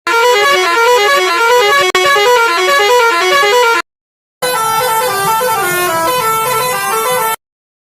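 Musical bus horn playing a quick tune of rapidly stepping notes. It sounds in two bursts, about four and three seconds long, with a short break between them.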